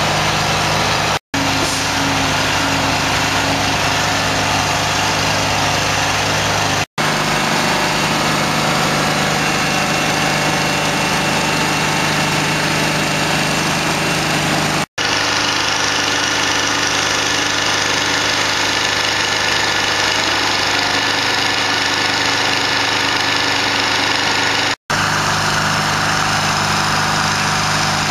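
Heavy emergency-vehicle engines idling with a steady drone. The sound drops out briefly four times where shots are cut together.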